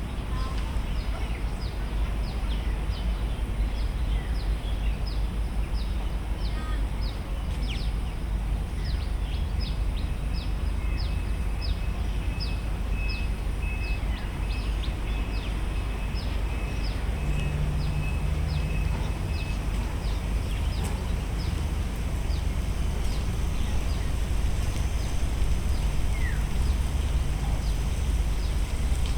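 Bird calling a long series of short, high, descending chirps, about two a second, over a steady low rumble. A faint thin steady tone sits under the chirps for a while midway.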